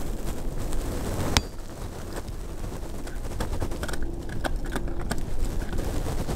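Wind rumbling on the microphone, with a few scattered sharp clicks, the loudest about a second and a half in.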